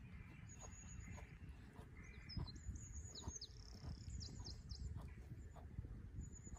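Small songbird calling: thin, high-pitched notes, then a quick run of three or four short falling notes about four seconds in, over a low outdoor rumble.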